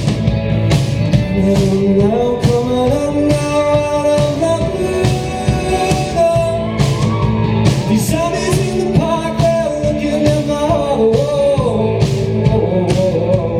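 Live rock band performing a song, with a male lead vocal singing sustained, gliding melody lines over the full band's drums and guitars.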